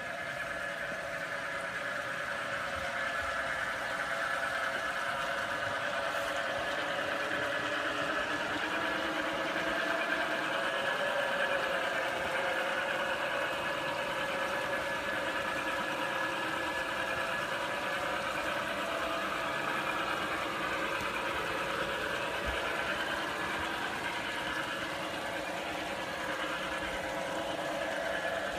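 Garden-scale electric model train running on its outdoor track, its motor giving a steady whine of several tones that wavers slightly and slides in pitch near the end.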